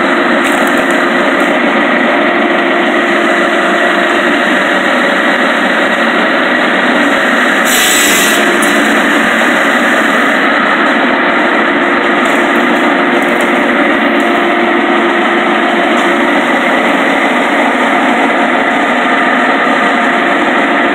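Firewood processor (log saw-splitter) running steadily under load as it cuts and splits logs, with a brief louder hiss about eight seconds in.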